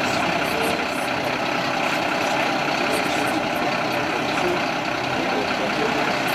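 Fire-engine turntable ladder truck's engine running steadily at idle.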